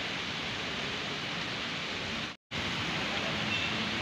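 Steady rain falling on a pond, an even hiss that drops out for a moment a little over halfway through.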